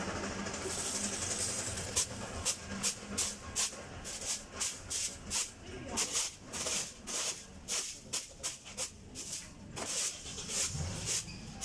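Broom sweeping the ribbed floor mat of a van's cargo area: quick, repeated bristly swishes, about two to three a second, starting about two seconds in.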